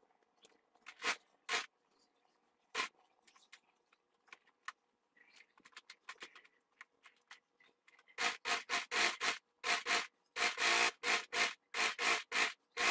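Hands handling and rubbing cotton fabric: scattered light clicks and rustles, then from about eight seconds in a loud, fast run of short scraping strokes, about three a second.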